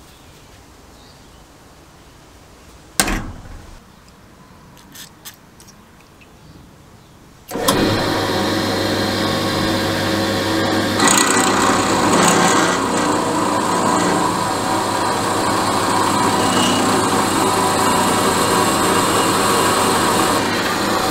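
One sharp hammer strike on a centre punch set on the end of a metal rod, followed by a few light clicks. About seven and a half seconds in, a drill press starts and runs steadily, and from about eleven seconds its bit is cutting into the end of the rod, adding a higher metallic cutting noise.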